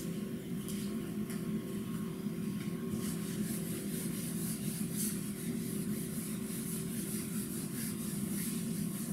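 Whiteboard eraser rubbed back and forth across the board, a run of repeated high swishes starting about three seconds in, over a steady low hum.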